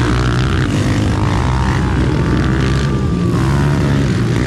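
Several mini quad (youth ATV) engines revving hard together as the pack accelerates away from the start, their pitches rising and falling against one another.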